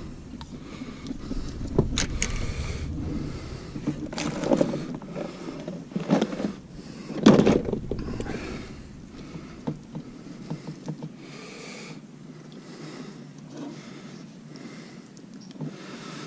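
Handling noises of a channel catfish being worked free of a landing net on a boat deck: irregular knocks, rustles and clatter, the loudest knock about seven seconds in. A low rumble underneath fades out about halfway through.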